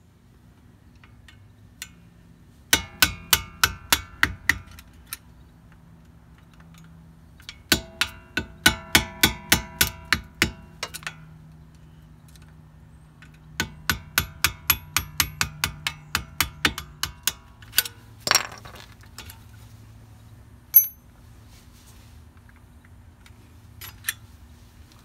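Hammer tapping a screwdriver to drive out the pad retaining pins of a Mercedes-Benz S550 front brake caliper: three runs of quick metallic taps with a ringing tone, about five a second, then a single harder knock.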